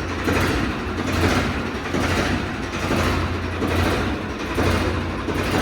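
Farmtrac 50 tractor's diesel engine running steadily, a low hum whose level swells and dips about once a second.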